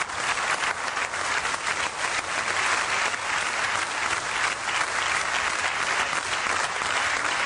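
Audience applauding steadily, the dense clatter of many hands clapping at once.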